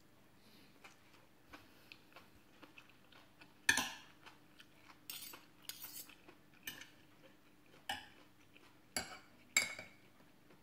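A metal spoon and fork clinking and scraping against a glass plate while eating. There are faint small ticks at first, then about eight sharp clinks through the second half, the loudest a little past a third of the way in and near the end.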